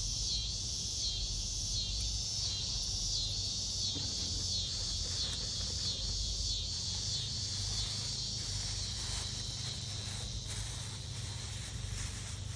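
Cicadas droning in a steady high chorus that swells and fades in quick waves during the first few seconds, with a few faint clicks in the later seconds.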